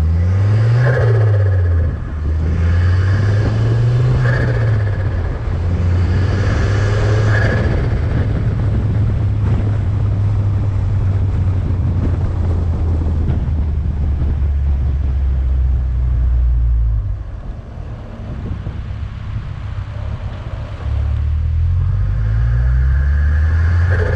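Volvo S40 T5's turbocharged five-cylinder engine accelerating hard: the revs climb and drop three times in the first eight seconds, as if shifting up through gears. It then runs steadily, eases off about seventeen seconds in and pulls again near the end, with turbo flutter on lifting off the throttle.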